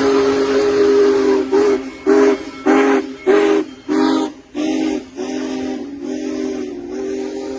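Union Pacific Big Boy 4014 steam locomotive's whistle sounding a chord of several notes. A held blast breaks, about a second and a half in, into roughly six quick short toots. The whistle is then held steady again, a little quieter, with a hiss of steam beneath it.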